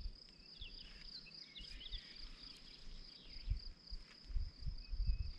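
Outdoor ambience: a steady high insect trill, like crickets, with a few short bird chirps in the first two seconds and some faint low bumps later on.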